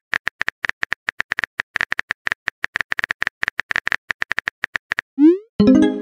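Simulated phone keyboard typing clicks, several a second, as a text message is typed in a texting-story app. About five seconds in they stop, and a short rising swoop and a louder pitched chime mark the message being sent.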